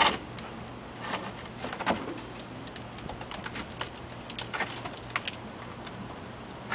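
A few light knocks and clinks from weight plates hanging on a wire hanger under a concrete test beam as they are loaded and steadied, with a faint steady hum behind.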